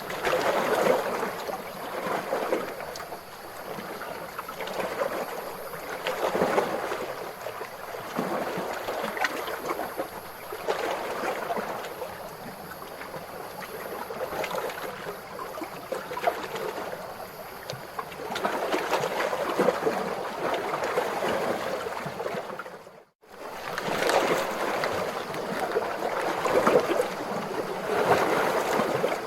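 Calm ocean waves washing in and out, swelling and easing every few seconds. The sound cuts out for a moment about two-thirds of the way through, then resumes.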